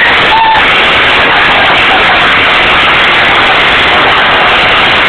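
Moped engine running, recorded very loud and distorted as a steady, even roar of noise.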